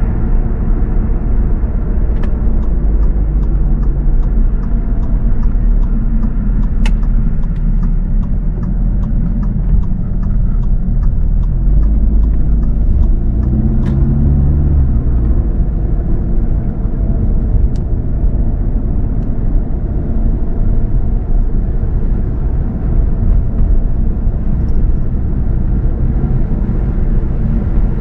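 Car driving: a steady low rumble of road and engine noise that swells briefly about halfway. A run of faint, evenly spaced ticks, about three a second, sounds from a couple of seconds in until about halfway.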